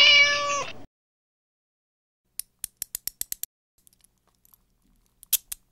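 The tail of a logo intro sound effect, ending on a held pitched tone within the first second. About two and a half seconds in comes a quick run of about eight short clicks, and two more clicks near the end.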